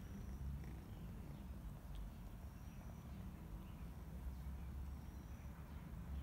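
Low, steady rumble with a few faint, short high whistles.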